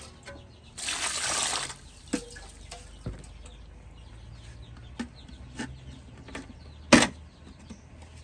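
A brief rush of liquid, about a second long, followed by a few scattered sharp knocks and clinks, the loudest about seven seconds in.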